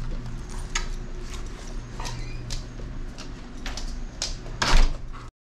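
Dogs' claws clicking and tapping on a hardwood floor as they walk in through a doorway, scattered irregular clicks over a low steady hum, with a louder knock near the end.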